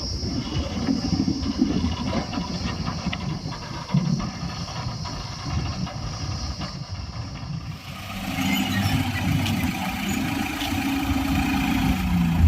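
Heavy diesel machinery running as a JCB 3DX backhoe loader works with Tata tipper trucks: uneven engine rumble, changing about two-thirds of the way through to a steadier engine note.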